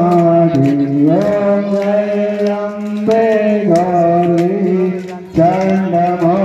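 A man chanting Hindu puja mantras into a handheld microphone, in long held notes that slide from one pitch to the next, with a short break for breath about five seconds in.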